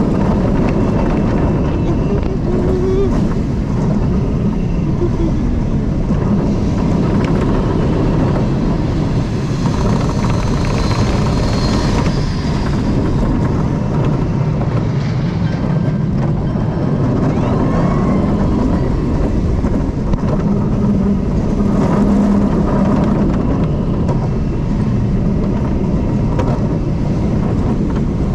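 Steady rush of wind over the camera together with the rumble of an Intamin launch roller coaster's wheels running along the steel track, loud throughout.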